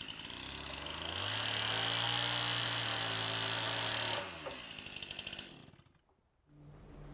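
A power tool's motor spins up, runs steadily for about three seconds, then winds down and coasts to a stop.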